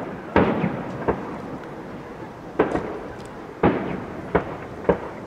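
Aerial fireworks bursting overhead: about six sharp bangs at irregular intervals, each trailing off in a rumbling echo.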